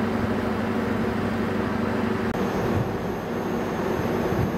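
Steady low mechanical drone of an idling train at the platform, with a constant hum under it. A faint high whine joins about halfway through.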